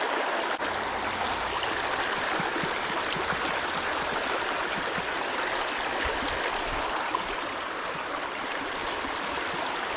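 Creek water flowing, a steady even rushing.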